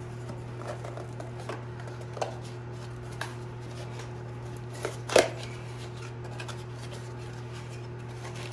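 Small cardboard parts box being handled and torn open by hand: scattered crinkles and clicks of cardboard, with one sharp, loud crackle about five seconds in. A steady low hum runs underneath.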